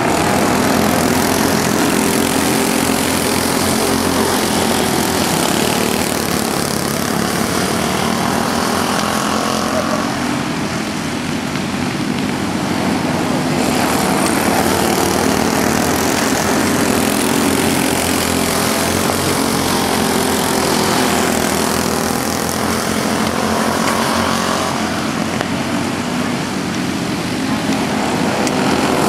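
Racing go-kart engines running hard, several karts at once, their buzz rising and falling in pitch and loudness as the karts come past and move off.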